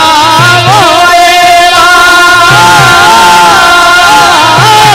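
Rajasthani folk music played live with deru drums: a loud, ornamented melody line with long held notes that bend up and down.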